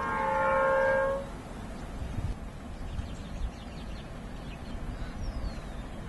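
Diesel locomotive's multi-tone horn sounding, cutting off about a second in, followed by a low rumbling haze.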